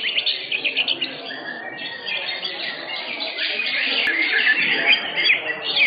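Several caged greater green leafbirds (cucak hijau) singing at once: a dense, overlapping stream of fast chirps and trills, over a low murmur of voices.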